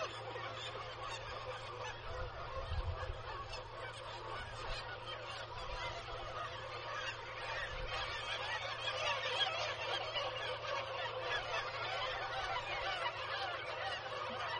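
Nesting colony of black-legged kittiwakes calling: many birds' calls overlap in a dense, continuous chorus.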